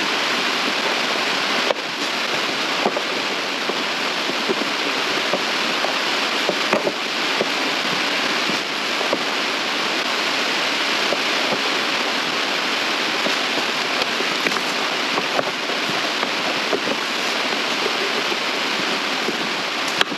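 A steady, even rushing hiss runs throughout, with a few light knocks and clicks from the plastic HVAC heater box being handled.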